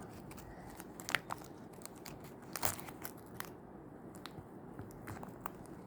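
Faint, scattered crinkles and clicks of a tape-covered paper squishy being handled, a few sharp ticks about a second in and again around the middle.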